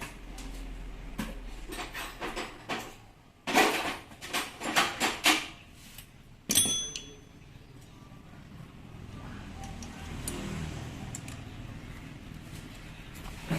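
Clinks and knocks of metal tool parts and hand tools being handled during disassembly of a rotary hammer, a quick cluster of them a few seconds in. One sharp metallic clink rings briefly about six and a half seconds in.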